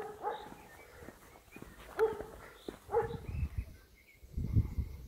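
A dog barking: a few short, sharp barks spread over the first three seconds. Low rumbling thuds follow near the end.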